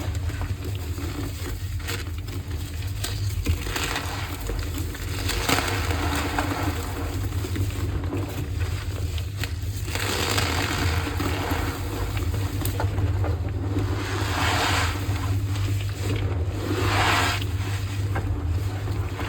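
Gym chalk being crushed, gritty crumbling that swells in several separate surges over a steady low rumble.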